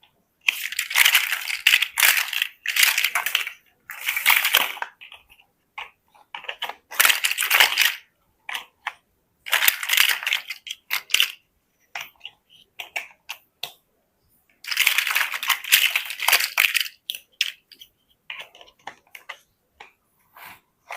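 Loose plastic building bricks rattling and clicking as they are handled. The clatter comes in bursts of a second or two with short pauses between them.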